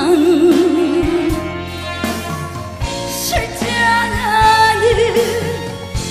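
A woman singing a Korean trot song live with band accompaniment. Her held notes carry a wide vibrato, and from about halfway in she holds higher notes.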